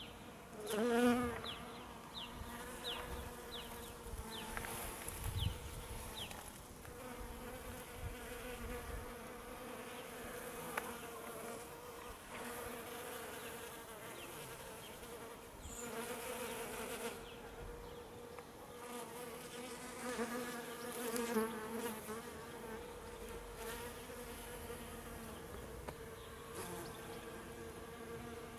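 Honeybees buzzing as they forage on rhubarb flowers: a steady hum that swells louder as a bee passes close, about a second in and again twice in the second half.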